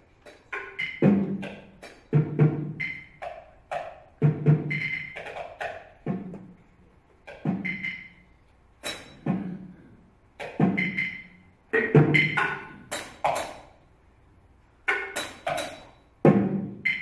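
Mallets striking small tabletop percussion objects in irregular clusters of hits separated by short pauses, each hit leaving a short pitched ring. There is a longer pause a little before the end.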